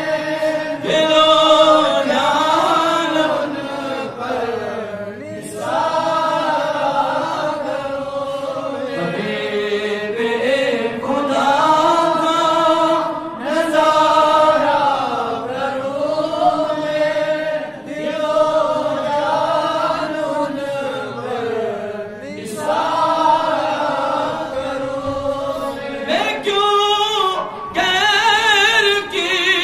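A man singing a naat, an Urdu devotional poem in praise of the Prophet, unaccompanied into a microphone. He holds long notes with gliding ornaments.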